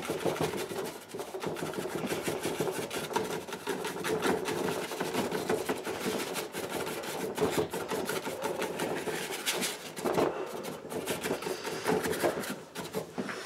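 Worn-out bristle brush scrubbing oil paint onto a painting board in quick back-and-forth strokes: a continuous scratchy rasping.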